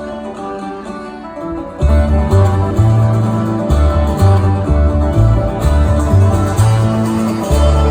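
Acoustic string band playing a traditional dance tune, with guitar among the plucked strings. The band plays softly at first, then comes in fully about two seconds in with a strong, stepping bass line.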